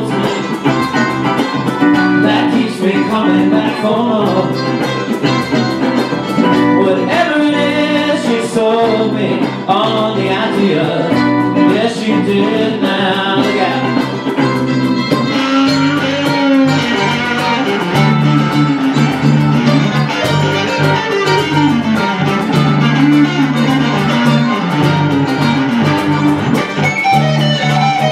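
Live band playing a song on electric guitars, mandolin and cajón, with a man singing. A stronger low bass line comes in about halfway through.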